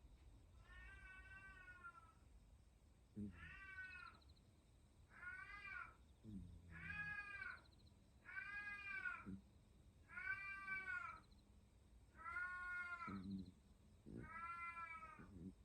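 A domestic cat yowling over and over: eight drawn-out, arching calls of about a second each, a second or two apart, some opening with a low throaty start.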